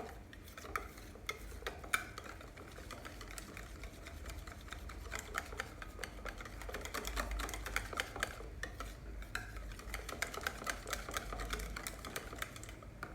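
Pancake batter being mixed by hand in a bowl: a utensil beating quickly round the bowl with a steady run of rapid clicks and taps, stopping shortly before the end.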